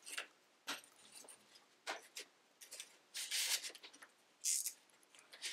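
Flat rattan reed and basket clips being handled as a rim row is clipped around a basket: scattered short clicks and a few brief rustling scrapes of reed, the longest about three seconds in.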